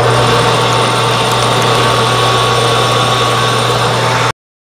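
Metal lathe running and turning down the outside diameter of an aluminum blank: a steady motor hum under the hiss of the cut. The sound cuts off abruptly near the end.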